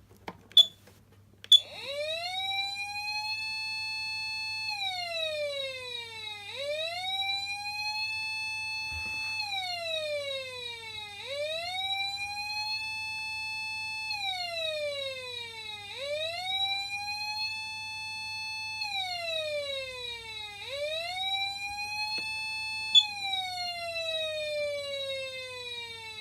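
Patlite SAP500BZ electronic siren amplifier sounding a wail: a buzzy tone rises, holds at the top for a moment, then falls, repeating about every four and a half seconds. Two sharp clicks come just before it starts and another near the end, over a faint steady low hum.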